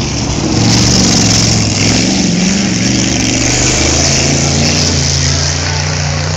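Hot rod race car engines running hard around a dirt oval: a loud, steady engine drone that shifts slightly up and down in pitch.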